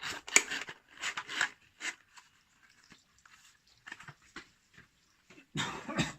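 Whetstones and their cardboard packaging being handled and set down: a run of clicks, knocks and crinkly rustles for about two seconds, a few faint ticks, then a louder rustle near the end.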